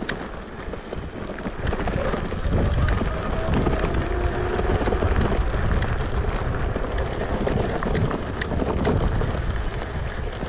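Wind buffeting the microphone on a moving Kugoo G2 Pro electric scooter, getting louder about two seconds in as it picks up speed, with scattered sharp clicks and rattles from the scooter on rough ground.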